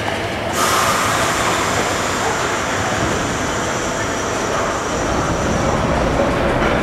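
Vintage R7A subway car at the head of an R1/9 train starting to pull out of the station. A sudden hiss of air begins about half a second in and lasts, with the steady running noise of the car's motors and wheels underneath, rising slightly as it gets under way.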